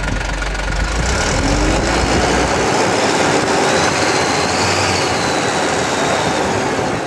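FAW truck's diesel engine running while it is revved on the accelerator, growing louder about a second in and easing near the end, with a faint high whine rising and falling in the middle.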